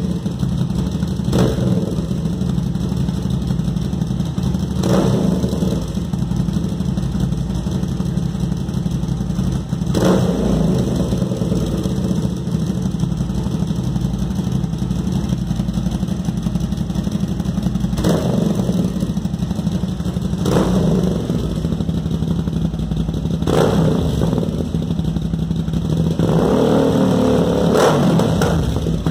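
Kasinski Mirage 650's V-twin engine idling through a Roncar Scorpion aftermarket exhaust tip (chamfered cone with removable baffle), blipped in short revs every few seconds, with a longer rev near the end.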